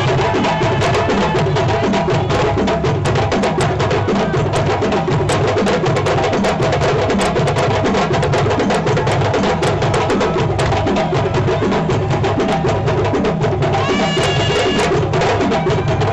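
Live West African hand drumming on djembes: a fast, dense rhythm of sharp slaps over a low drum stroke repeating about twice a second.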